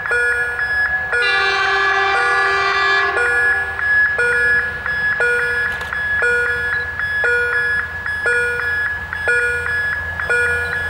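An electronic level-crossing bell rings over and over at about one stroke a second. An approaching SKPL SN83 Wadloper diesel railcar sounds its chord horn from about one to three seconds in, and its low running rumble grows near the end as it nears.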